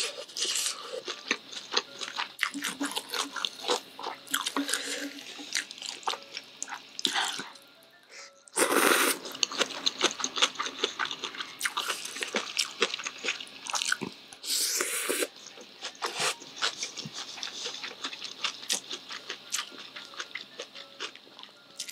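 Close-up eating sounds of spicy Korean cold noodles (naengmyeon) in broth: steady chewing and small mouth clicks, with two longer, louder slurps of noodles and broth, about nine seconds in and again about fifteen seconds in.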